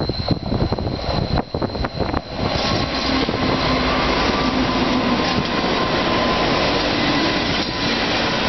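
Wind buffets the microphone for the first couple of seconds. Then a pair of NR class diesel-electric locomotives running light engine pass close by, their engines and wheels making a loud, steady noise with a low tone held through it.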